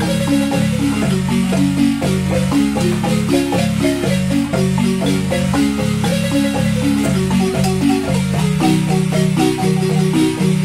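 Wooden marimba played by three players with mallets, a son: low notes held as fast rolled strokes under a quicker, busier melody higher up, in a steady, unbroken rhythm.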